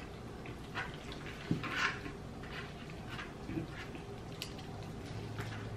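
Close-up eating sounds: wet chewing and lip smacks while chopsticks stir and lift sticky black-bean instant noodles (jjajangmyeon) in a bowl. There are scattered short clicks and smacks, with a sharper knock and a louder wet burst about a second and a half in.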